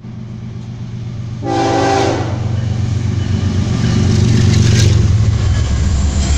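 Diesel locomotives of a Union Pacific freight train running past, their engine rumble growing louder as they come closer. One short multi-tone horn blast sounds about one and a half seconds in.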